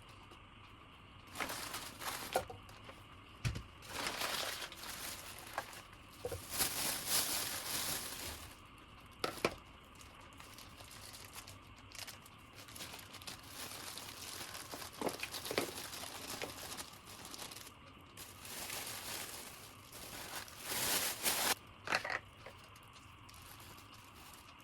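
Plastic packaging crinkling and rustling as it is handled, in short irregular bursts with a few sharp clicks.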